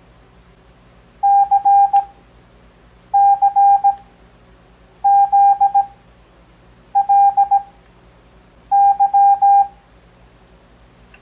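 Morse code (CW) practice tone: a steady beep keyed on and off into dots and dashes, sending five single characters, one about every two seconds. The characters are sent at 17 words per minute but spaced out Farnsworth-style to an overall 6 words per minute for beginners.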